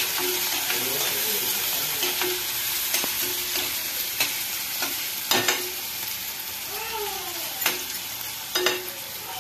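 Chopped onions, green chillies and curry leaves sizzling in hot oil in a steel kadai, a steady hiss, while a metal spatula stirs and scrapes the pan with scattered sharp clinks, the loudest a few seconds from the end.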